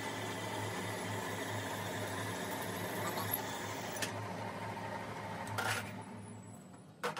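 Metal lathe running with a steady mechanical hum as a tool bit cuts a part spinning in a four-jaw chuck. Near the end the hum drops away, followed by a sharp click.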